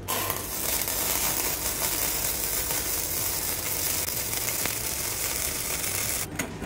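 Gasless flux-cored MIG welding arc from an EENOUR MIG120L 100 V semi-automatic welder, running a bead on 1.6 mm mild steel at about 72 A and 14.7 V. The arc gives a steady hiss that starts at once and stops shortly before the end.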